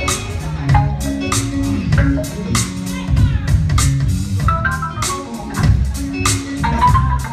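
Organ solo over a live band: sustained organ chords with short melodic runs, over a steady drum beat.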